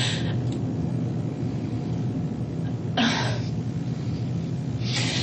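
A woman crying: three short, sharp sobbing breaths or sniffs, one at the start, one about three seconds in and one near the end, over a steady low hum from the old interview-room recording.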